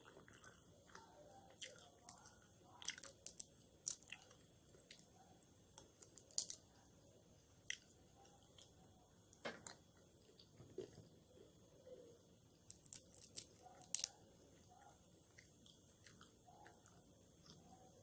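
In-shell peanuts being cracked open by hand and chewed: faint, scattered crunches and clicks, a few to a cluster every second or two.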